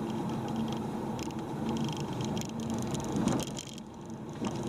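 Car driving, heard from inside the cabin: steady engine and road noise, with the Olympus TG-870's loose zoom lever rattling against the camera body from the car's vibration as a run of small clicks. The noise drops for about a second near the end.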